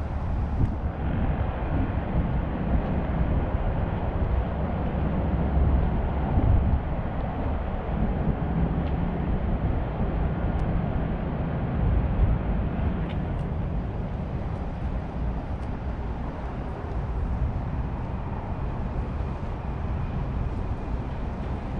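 Steady outdoor rumble, heaviest at the low end and fluctuating, with a few faint clicks.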